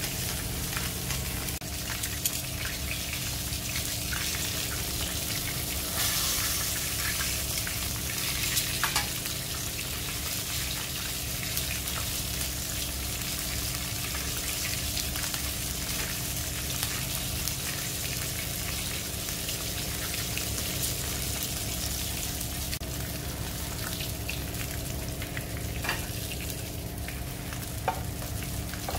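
Whole sea bass sizzling and crackling steadily as they shallow-fry in hot oil in a nonstick frying pan, with a steady low hum beneath. Near the end come a couple of sharp metal clicks as tongs touch the pan to lift the fish out.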